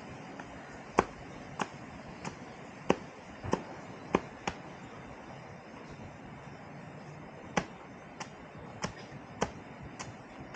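A machete blade chopping into bamboo held against a wooden log, about a dozen sharp strokes at roughly one and a half a second, in two runs with a pause of about three seconds between them.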